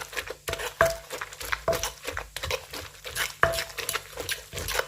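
Bamboo-shoot salad being tossed and mixed in a mortar: irregular knocks of a utensil against the mortar, each with a short ringing note, among stirring and scraping sounds.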